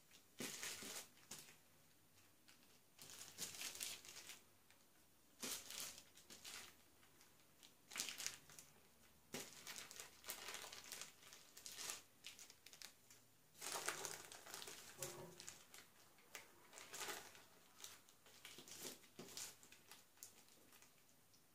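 Clear plastic film crinkling and rustling in irregular bursts as hands roll a cherry-filled strip of dough on it.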